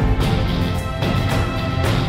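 Background music with a steady beat and sustained chords.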